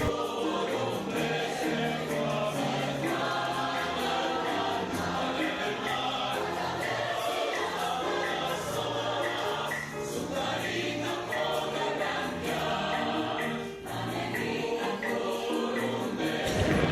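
Background music: a choral piece with a steady bass line and layered sung voices.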